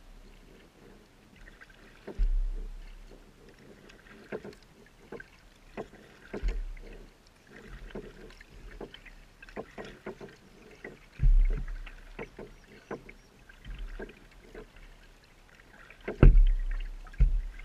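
Kayak paddle strokes in calm water: the blade dips and splashes about once a second, with drips and small knocks. A few heavy low thumps stand out, the loudest near the end.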